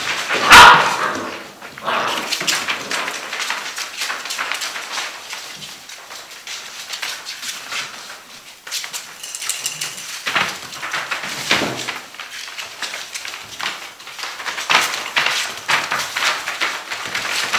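Six-week-old Gordon Setter puppies at play: a loud yelp about half a second in, then scuffling and the scrabble of paws on the paper-covered floor, with small yips and whines.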